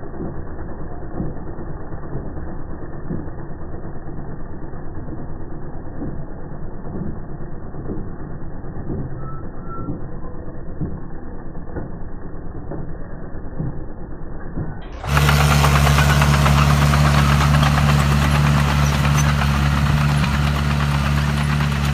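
Tractor engine running as it pulls a Clemens Radius under-vine weeder through the vineyard soil, with irregular knocks from the working tool. About fifteen seconds in, the sound cuts abruptly to a louder, clearer steady engine hum.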